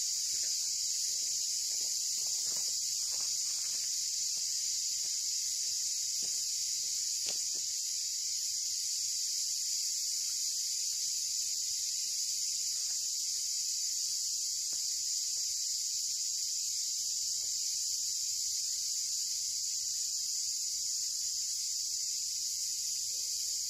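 Steady, high-pitched chorus of insects droning without a break. Faint footsteps on the dry track fade out over the first few seconds.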